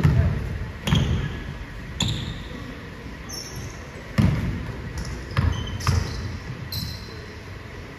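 Basketball bouncing on a hardwood gym floor, with about seven thuds echoing in the hall: three in the first two seconds, a pause, then four more in quicker succession.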